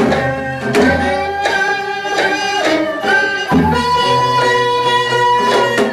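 Korean traditional ensemble music: plucked gayageum zithers and a bowed haegeum hold long melodic notes over repeated janggu drum strokes.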